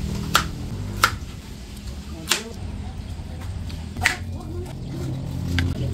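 Chef's knife cutting okra and a tomato on a bamboo cutting board: the blade knocks sharply against the board five times at uneven intervals.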